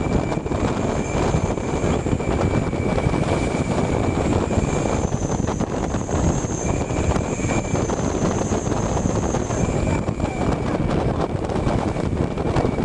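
Steady rush of wind and road noise from a bus driving along a road, its engine running underneath, picked up by a microphone outside at the front of the vehicle. A faint high whine comes and goes.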